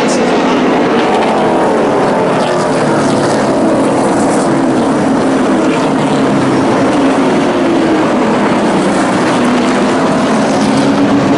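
Engines of a pack of pickup-bodied race trucks running at racing speed, several at once, their pitches rising and falling as they lift into the turns and accelerate out.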